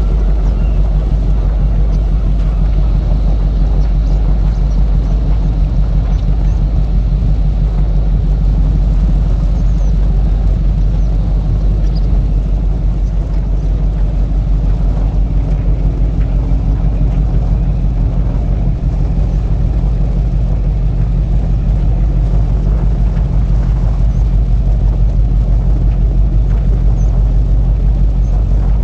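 Steady, loud low engine rumble with a fast even pulse, unchanging throughout.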